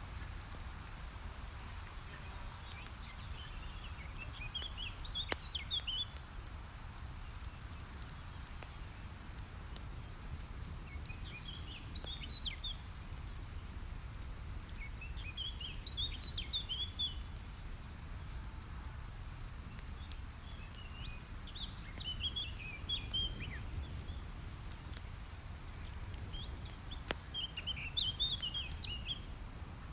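A songbird repeating a short twittering phrase five times, every five or six seconds, over a steady low rumble and hiss, with a few faint pops from a crackling campfire.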